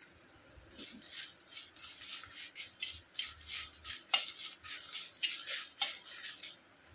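Steel spoon stirring whole dry red chillies as they dry-roast in a steel kadhai: repeated short scrapes of metal on metal, with a few sharper clinks.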